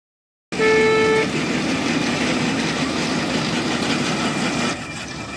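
A horn sounds one short toot about half a second in, followed by the steady machinery noise of a running asphalt mixing plant, its rotating drum mixer and feed equipment at work; the noise drops somewhat near the end.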